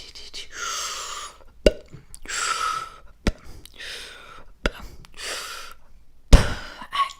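Close-miked ASMR mouth sounds: four soft, breathy exhales alternating with sharp lip pops or tongue clicks, the loudest pop coming a little past six seconds in.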